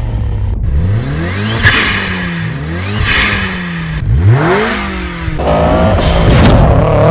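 Film sound of the Mitsubishi Lancer Evolution VII and Eclipse Spyder engines revving again and again, the pitch sweeping up and falling back several times. About five and a half seconds in the engine sound gets louder and settles into a steady note that climbs slowly, as the cars pull away under acceleration.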